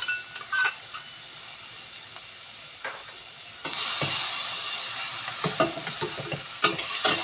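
Onion, garlic and chilli sizzling in hot oil in a stainless steel wok, stirred with a metal spatula that clicks and scrapes against the pan. The sizzle grows suddenly louder about halfway through.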